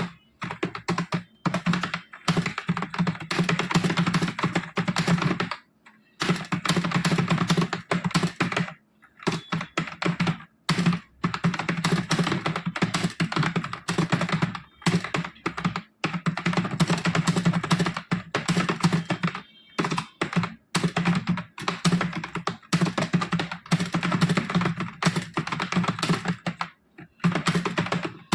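Fast, steady touch-typing on a computer keyboard: a rapid unbroken patter of key strokes, stopping for a moment now and then, six or so times.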